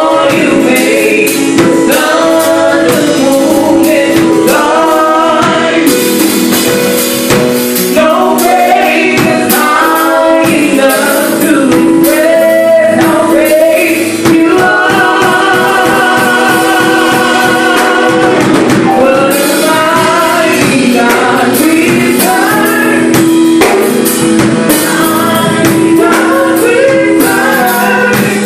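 Gospel praise team of men and women singing together in harmony, with long held, wavering notes over a steady sustained backing.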